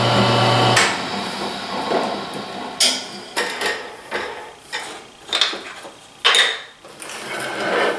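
A belt sander's motor hum stops about a second in, followed by scattered knocks and clatter of a wooden workpiece and tools being handled on the bench.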